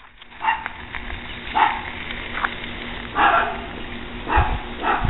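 A dog barking repeatedly, about one bark a second.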